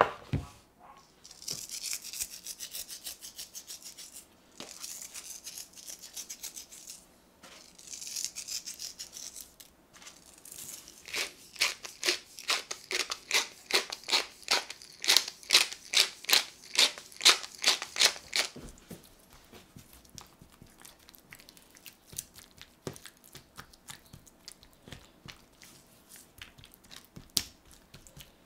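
Wooden pepper mill grinding black pepper onto raw chicken thighs: a run of crunching turns, about two a second, for several seconds past the middle. Two shorter spells of high hiss come first, and near the end there are faint soft ticks as the seasoning is rubbed into the meat.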